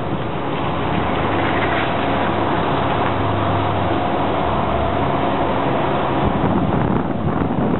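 Vehicle engines running steadily: a pickup truck drives past close by near the start, and a Genie GS-3268 RT rough-terrain scissor lift's engine runs as the lift drives.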